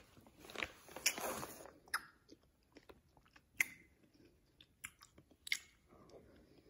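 A person eating cotton candy: quiet chewing with scattered short mouth clicks and smacks, a little busier in the first two seconds, then sparse.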